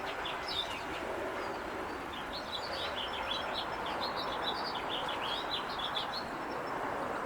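Small songbirds chirping: many short, high, quick notes in a busy run, over a steady background hum.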